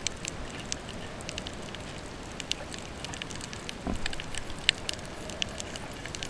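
Underwater crackle of a coral reef: a dense, irregular patter of sharp clicks from snapping shrimp over a steady hiss, with a low muffled thump about four seconds in.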